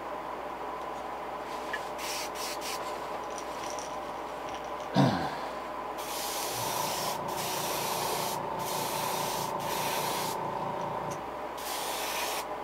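Airbrush spraying paint onto a fishing lure in hisses: a few quick bursts about two seconds in, then longer hisses of about a second each from about six seconds on. About five seconds in, a short knock with a falling squeak is the loudest sound.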